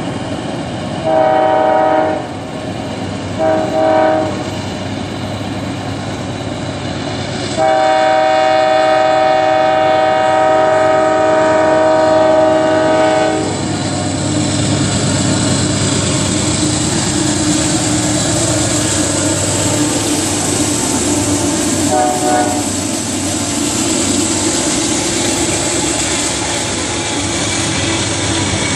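Diesel locomotive horn of a loaded CSX coal train sounding for a grade crossing: two short blasts, then one long blast of about six seconds. The locomotives and loaded coal hoppers then roll past with a steady rumble of engines and wheels on rail, with one brief horn toot about two-thirds of the way through.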